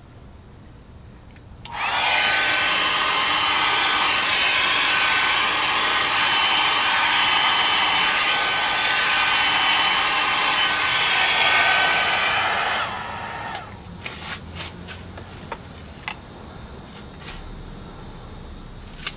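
Handheld electric hot-air blower switched on, its motor whining up to speed, blowing steadily for about eleven seconds, then switched off with the whine falling away.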